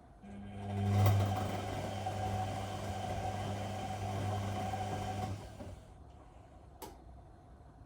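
Whirlpool Indiana 1400 washing machine's motor turning the drum for about five seconds with a steady hum, then stopping. A single short click follows near the end.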